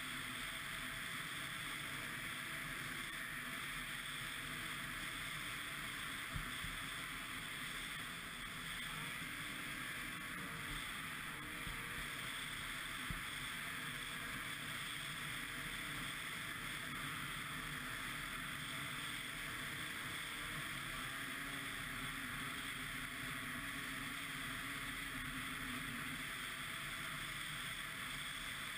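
Ski-Doo MXZ 600 X-RS snowmobile's two-stroke engine running steadily under way, its pitch wavering only slightly, with a few small knocks.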